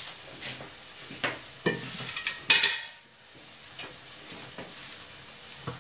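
Stainless-steel kitchen containers and lids clinking and clattering as they are handled, in a run of separate knocks with the loudest clatter about two and a half seconds in.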